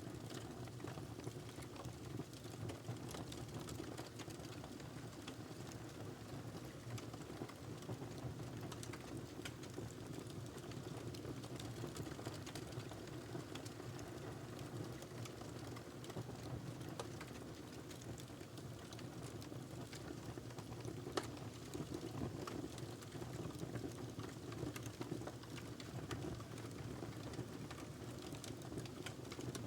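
Wood logs burning in a fireplace: a steady low rush of flame with frequent small crackles and pops, and one sharper pop about two-thirds of the way through.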